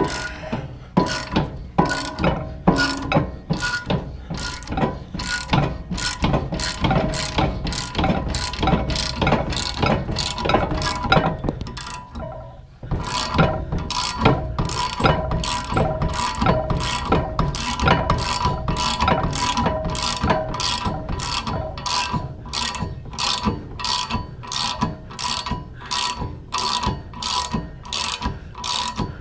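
Ratchet wrench clicking steadily as it turns the screw of a gear puller, each click with a light metallic ring, working a seized bearing and flange off the chipper shaft. The clicking stops briefly about twelve seconds in, then resumes.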